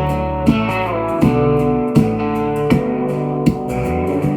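Instrumental intro of a song with guitar and a steady drum beat, played back through a Warzone WZ40PTi 4-inch speaker in a toolbox Bluetooth speaker build.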